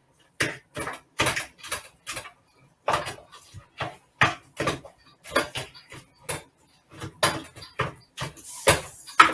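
Two metal forks shredding cooked chicken breast: irregular clicks and scrapes of metal on the cookware, about two or three strokes a second.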